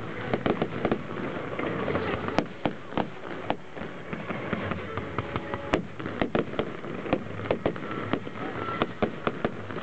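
Fireworks display: aerial shells bursting, with a rapid, irregular run of sharp bangs and crackling pops, several a second.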